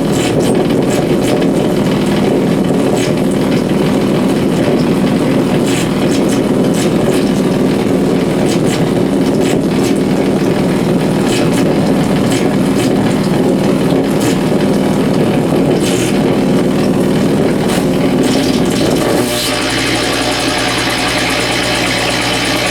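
Amplified electrical interference from compact fluorescent bulbs struggling on dimmer switches, picked up by exposed guitar cables with no effects: a dense, crackling buzz with sharp clicks. About 19 seconds in it shifts to a steadier buzz with a stack of even tones and a high hiss.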